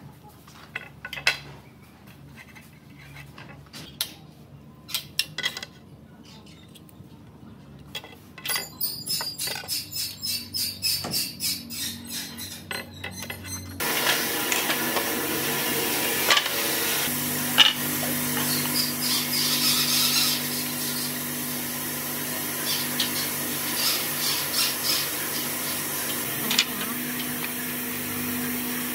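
Pine boards being handled on a steel frame and marked with a pen. Scattered knocks and clicks come first, then a run of quick, rhythmic scratching strokes. From about halfway a louder steady hum sits under further knocks.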